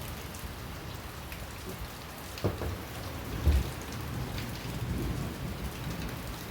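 Heavy rain falling steadily during a thunderstorm. A sharp knock comes about two and a half seconds in, and a short, deep, loud thump follows about a second later.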